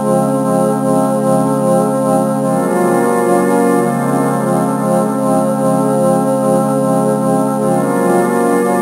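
Music of held, organ-like chords that pulse slowly, with no drums. A higher layer of notes joins about two and a half seconds in.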